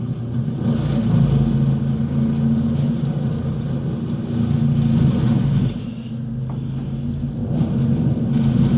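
Stump grinder's engine running with a steady deep drone. It eases off a little about six seconds in and builds again near the end.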